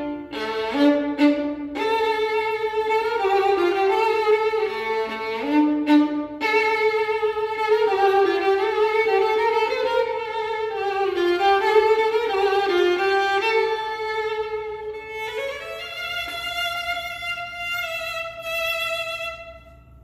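Solo violin playing a melody, with short breaks between phrases, and closing on long held higher notes that stop just before the end.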